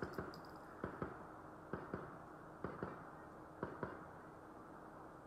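Soft clicks and clacks of the bolt of a CZ 457 .22 rimfire bolt-action rifle being worked between shots, a few faint strokes about a second apart.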